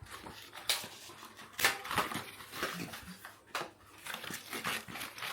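Scattered rustles, crinkles and sharp clicks of packaging being handled and pulled off a new bicycle.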